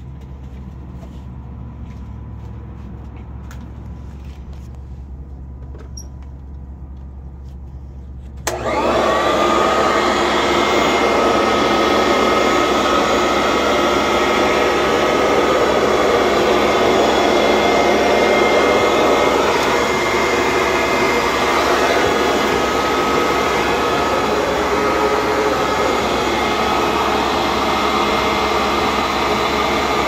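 Sanitaire Heavy Duty Commercial upright vacuum switched on about eight seconds in, after a low hum and a few light clicks. Its motor spins up with a rising whine, then runs steadily: a loud rush of air with a steady high tone over it.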